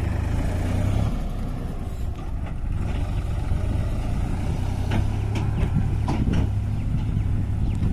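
Diesel farm tractor engine running steadily as it pulls a loaded trailer along a dirt track, with a few knocks from the trailer about five and six seconds in.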